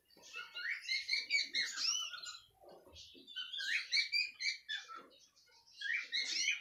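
Canaries chirping and twittering in three bursts of quick, high chirps.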